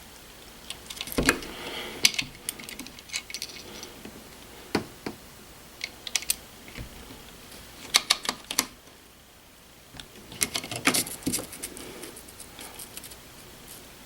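Small screws and a screwdriver clicking and rattling as they are handled and started into a thermostat base plate, in irregular clusters of sharp clicks.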